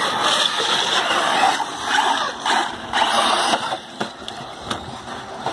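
Radio-controlled trophy trucks running on a dirt track: a series of rushing bursts of tyre-on-dirt and drive noise, with a couple of sharp knocks about four seconds in.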